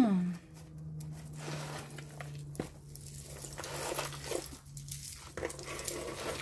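Small clicks and rustles of tangled costume jewelry and cardboard being handled and pulled apart, with a low steady hum through most of it that stops about five seconds in and one sharper click about halfway through.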